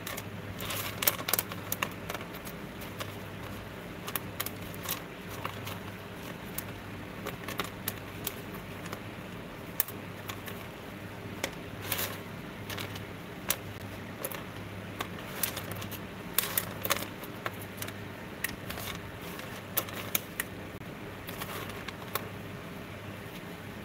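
Small pieces of copper-foiled sea glass clicking and clinking against each other and the work tray as gloved hands push and sort them with a wooden stick: irregular sharp ticks, some in quick clusters, over a steady low hum.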